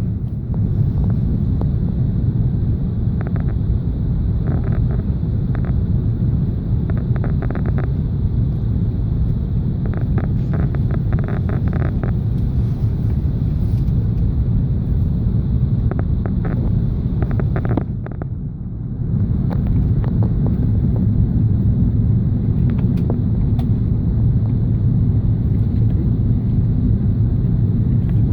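Steady low rumble inside the cabin of an Airbus A380 taxiing on the ground, with a constant airy hiss above it. Groups of short knocks come through over the first two-thirds, and the rumble dips briefly for about a second.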